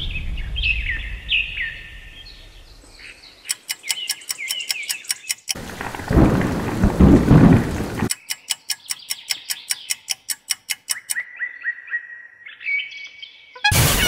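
American robin singing in short whistled phrases, joined from about three and a half seconds in by a fast, regular ticking. About five and a half seconds in, a loud rumble of thunder lasting some two and a half seconds covers everything, then the ticking and the robin's song return.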